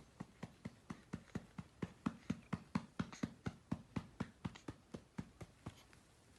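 A hand patting a newborn's back to bring up a burp: soft, even pats about four to five a second that stop near the end.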